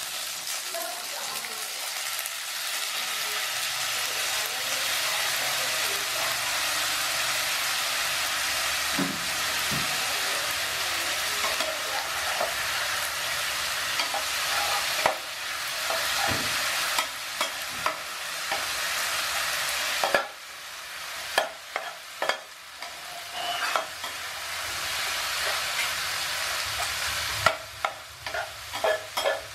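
Yakisoba noodles and sliced sausages sizzling in a nonstick frying pan while a spatula stirs and tosses them, scraping and tapping the pan. Twice in the second half the sizzle drops away for a moment, leaving the spatula's sharp taps clearer.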